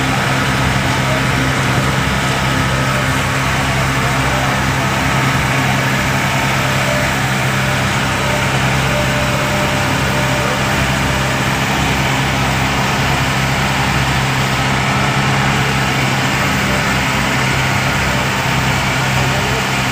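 Engine of a bangka, a Filipino outrigger boat, running at a steady drone while underway, with the rush of water along the hull and outrigger.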